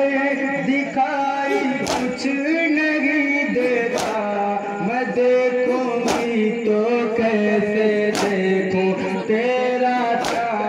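Men singing a nauha (Shia mourning lament) in unison, with a sharp collective chest-beat of matam about every two seconds, six strikes in all.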